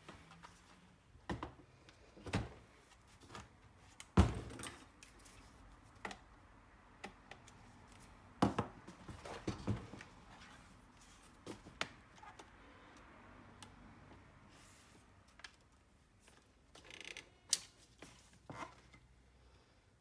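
An Acer laptop being handled on a workbench: scattered knocks and clicks of its case and lid as it is closed, turned and stood on its edge, the loudest about four seconds in.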